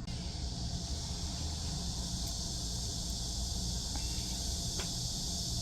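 A steady, even, high-pitched insect chorus of summer, droning without a break over a low steady rumble.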